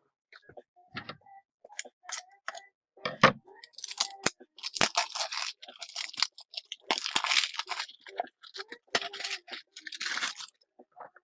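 Plastic packaging crinkling and rustling in irregular stretches, with scattered light clicks and knocks, as a pack of plastic card top loaders is handled.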